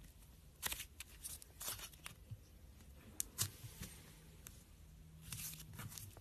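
Slime being squished and poked by hand, making irregular short sticky pops and crackles.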